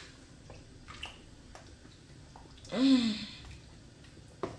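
Wooden spoon stirring a thick stew in a steel pot, with a few light knocks of the spoon against the pot. About three seconds in, a short voice sound that rises and falls in pitch is the loudest thing.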